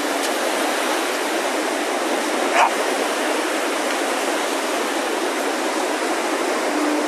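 Steady rush of small waves washing onto a sandy shore, with one short, rising yelp from a Staffordshire bull terrier about two and a half seconds in.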